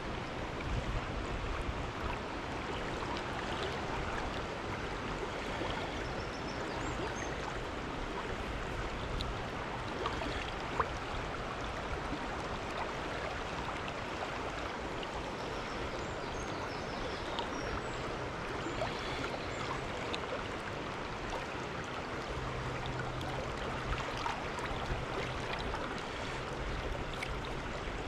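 River water running steadily over its bed, an even rushing noise, with a single sharp click about eleven seconds in. The river is running high after rain.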